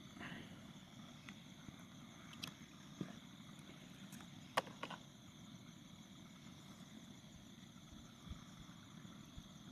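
Faint night ambience with steady high-pitched insect chirring, broken by a few soft clicks about two and a half and three seconds in, and a sharper pair of clicks around four and a half seconds in.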